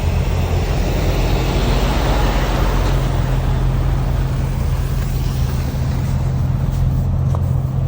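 A truck's diesel engine running close by, a steady low drone, with a hiss of tyres through wet slush that swells about two to three seconds in and then eases.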